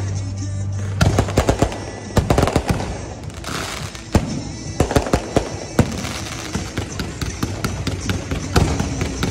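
Aerial fireworks shells bursting overhead in a rapid, irregular string of sharp bangs, several close together at times.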